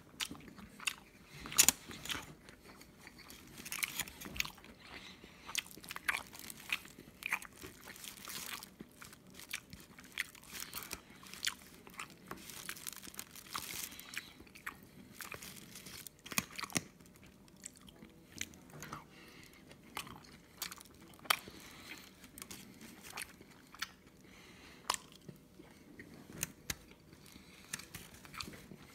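Close-miked eating of a rice burger: wet chewing and mouth smacks with irregular sharp clicks, the loudest about two seconds in.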